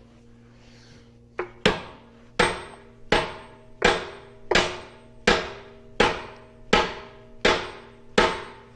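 Hammer blows on steel driving a bearing race off a tractor transmission part: a light tap, then about ten hard, evenly paced strikes, each ringing metallically. There is a low steady hum underneath.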